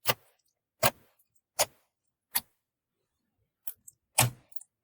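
Clear slime being worked by hand, giving sharp pops: four evenly spaced about three-quarters of a second apart, then a few small ones and a louder pop near the end.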